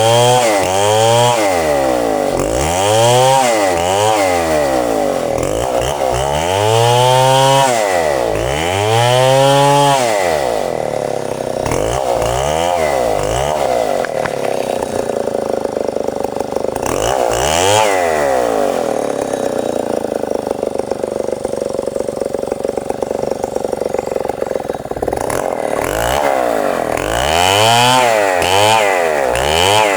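Stihl 070 two-stroke chainsaw sawing red meranti timber, the engine revved up and down again and again, with longer stretches held at a steady speed in the middle.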